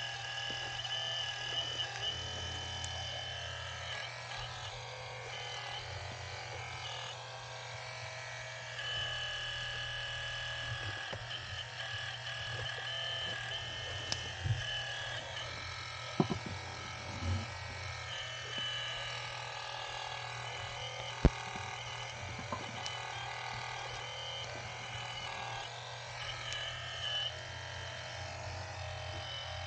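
Electric-driven hydraulic pump of a radio-controlled excavator whining steadily, its pitch stepping up and down as the load changes, with a few sharp clicks, the loudest about two-thirds of the way through.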